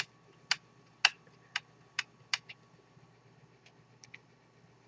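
Ink pad being tapped onto a clear stamp mounted on an acrylic block: a run of sharp plastic taps, about two a second, then a few fainter clicks near the end as the block is handled.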